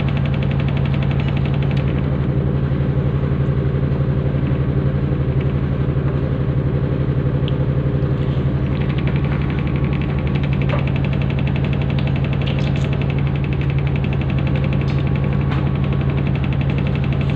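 A motor-driven spinning disc running at speed, with a steady low hum and a fast, continuous rattle.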